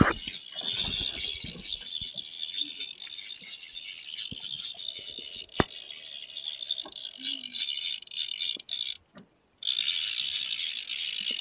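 Big-game trolling reel ratcheting with rapid clicks while a hooked fish pulls on the bent rod. The sound cuts out briefly about nine seconds in.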